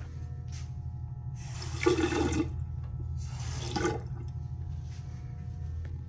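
Water from a two-handle sink faucet splashing into a porcelain basin in two short runs: about a second, then a shorter one a second later. A steady low hum sits under it.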